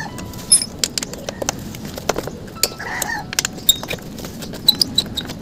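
Scattered sharp metallic clicks and taps of bolts and parts being handled and turned by hand on a motorcycle's rear brake master cylinder mount, with a chicken clucking briefly about three seconds in.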